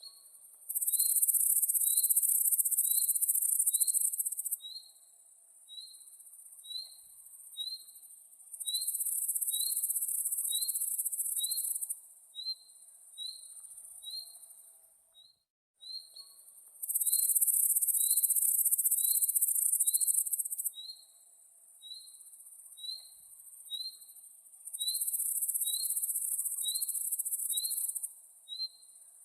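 Insects buzzing loudly and high-pitched in bursts of about four seconds, with pauses between, over a short high chirp repeated evenly a little more than once a second.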